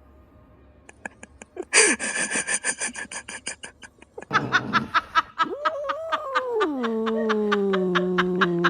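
Hard laughter in quick pulses, then a long, drawn-out laugh sliding down in pitch.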